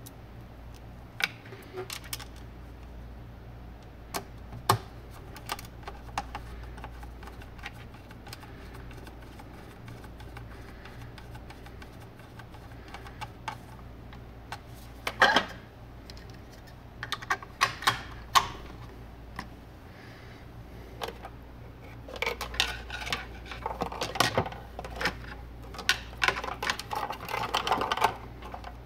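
Hand-wiring work with a screwdriver and wires: scattered small clicks and taps, getting busier near the end, over a steady low hum.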